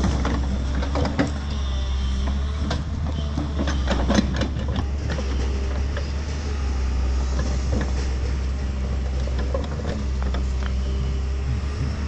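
New Holland excavator's diesel engine running steadily, with irregular knocks and cracks as its hydraulic breaker attachment works into a tree stump and roots. The knocks come thickly in the first few seconds, then thin out.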